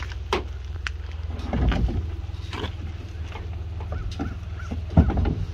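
Plastic kayak hull knocking and bumping against the Thule Hull-a-Port Aero J-cradles on a truck roof rack as it is lifted and settled into place: a string of short knocks, with a heavier thump about five seconds in, over a steady low rumble.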